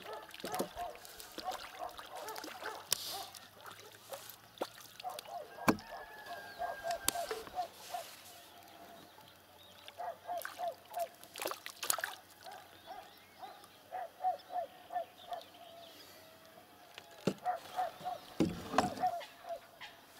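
A waterbird calling in several quick runs of short, nasal notes, mixed with the splashing of a hooked crucian carp thrashing at the surface as it is lifted from the water.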